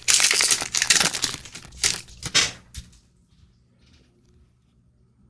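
Card pack wrapper crinkling and tearing as a booster pack is ripped open, for about three seconds before it goes quiet.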